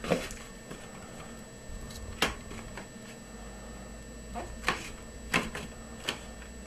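Latex modelling balloon handled and squeezed by hand: a handful of brief rubs and squeaks of the rubber, about five spread across a few seconds, the first and loudest right at the start.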